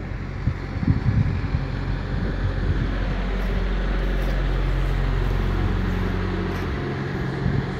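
Heavy truck's diesel engine idling steadily, growing louder toward the middle, with a few dull knocks about a second in.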